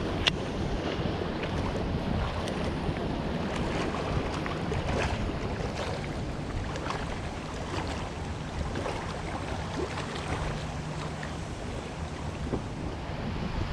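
Wind buffeting the microphone, a steady low rumble of noise, with a few faint scattered clicks.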